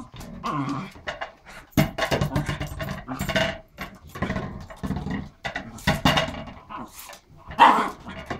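Small dog growling in repeated bouts while pushing and mouthing an empty plastic hamster ball across a hardwood floor, the ball knocking and clicking on the boards.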